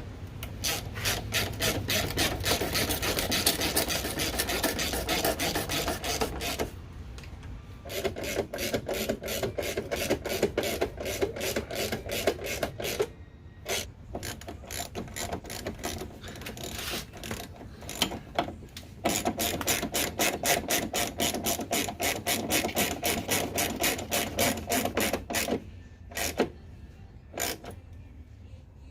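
Ratchet wrench clicking rapidly as bolts are wound in, in three long runs with short pauses about seven and thirteen seconds in, stopping near the end.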